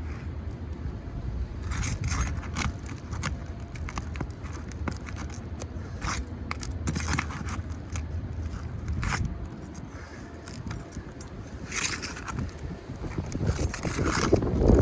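Irregular scraping and crackling of asphalt shingles being loosened and pulled up on a roof. The shingles are worn thin and heavily degranulated.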